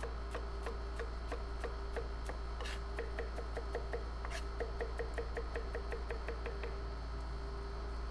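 Chef's knife mincing garlic on a cutting board: a run of quick, even chopping taps, about three a second at first and speeding up to about five a second, stopping shortly before the end.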